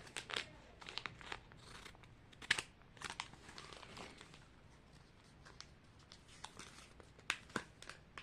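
A small packet being handled and cut open with scissors: faint crinkling and rustling with irregular sharp snips, the sharpest about two and a half seconds in and again near the end.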